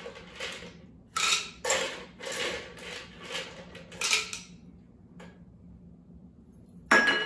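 Ice cubes being scooped with a metal scoop from a stainless ice bucket and tipped into a glass cocktail shaker, clattering in a series of bursts over the first four and a half seconds. A single sharp clink follows near the end.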